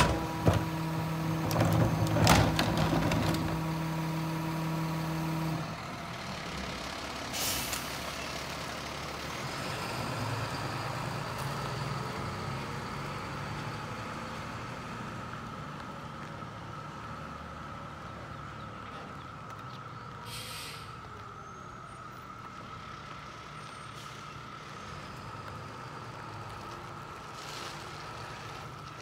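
Ez-Pack Apollo rear-loader garbage truck. For the first five seconds the engine and hydraulics hum steadily at raised revs, with a few knocks as the emptied cart is set down. The hum then cuts off, the air brakes hiss, and the truck pulls away, its engine rising around ten seconds in. Further air-brake hisses come about twenty seconds in and again near the end as it slows.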